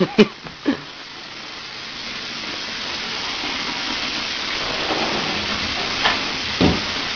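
Shower water spraying onto a tiled floor: a steady hiss that grows louder throughout. A few sharp knocks come in the first second, and a dull thump near the end.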